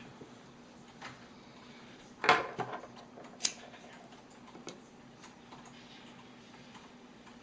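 Scattered light clicks and knocks of small hard objects being handled, with a louder knock a little over two seconds in and a sharp click about a second later, over a faint steady hum.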